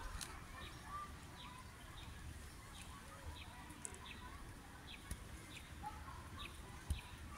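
A bird repeating short, high, falling chirps about once or twice a second, faint over a low outdoor rumble.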